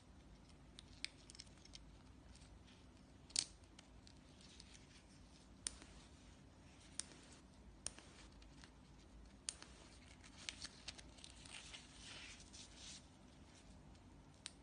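Faint handling of the plastic light module on a nylon LED dog leash: a handful of sharp small plastic clicks as its cap is worked and the light switched on, the loudest about three and a half seconds in. Soft rustling of nylon webbing follows in the second half.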